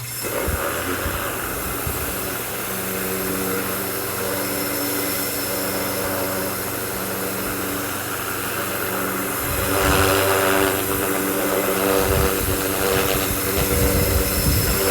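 Ryobi 1600 PSI brushed electric pressure washer running, its motor and pump humming steadily under the hiss of the water jet. About ten seconds in, the spray gets louder and harsher.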